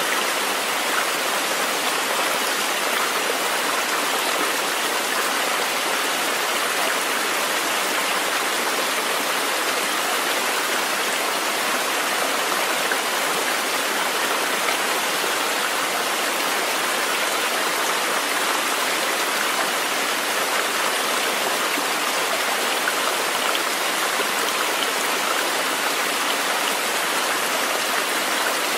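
Steady, even rushing of flowing water from a nature-sounds recording, unchanging throughout.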